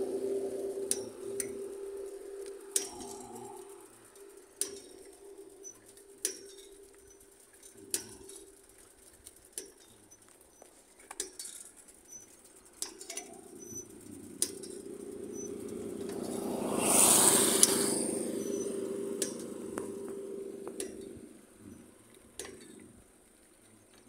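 A road vehicle passes: its noise swells over several seconds, peaks about two-thirds of the way through, then fades. Scattered sharp clicks sound throughout.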